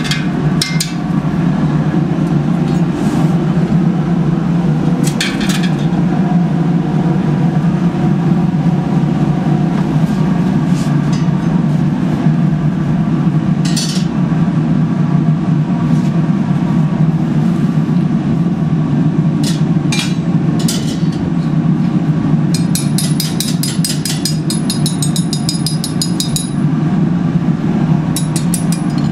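Glass-bead furnace fire running with a steady low rushing noise. Scattered sharp metal clinks from the working tools, and a quick run of light metallic ticks near the end.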